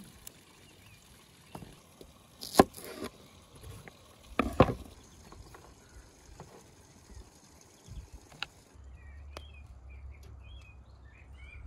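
Garlic cloves being peeled by hand over a wooden cutting board, with two sharp knocks on the board about two and a half and four and a half seconds in. Near the end this gives way to a low outdoor rumble and small birds chirping.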